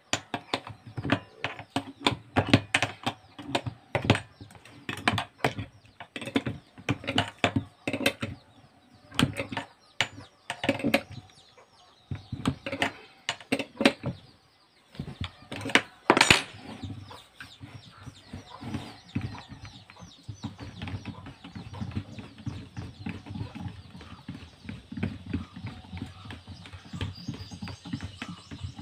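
Irregular metal clicking and clinking as a router's bit, washers and collet nut are worked by hand with a spanner.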